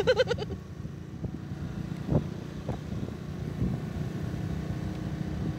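Steady low engine drone and rumble of a vehicle moving along a narrow paved lane, heard from on board. A short voice-like call sounds at the very start.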